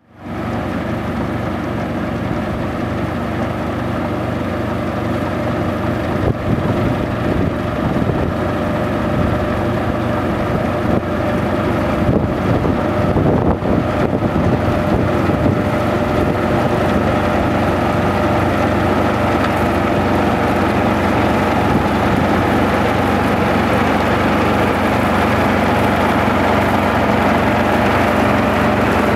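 Yanmar mini combine harvester running while it cuts standing grain: a steady engine drone mixed with the noise of its cutting and threshing machinery, growing a little louder as the machine comes closer.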